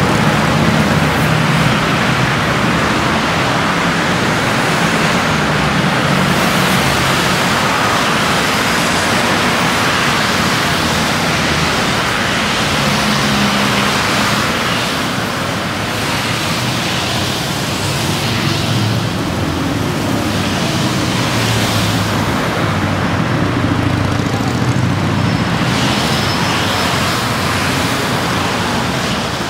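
Road traffic: a steady wash of engine and tyre noise with a broad hiss, the low engine hum swelling and easing as vehicles pass.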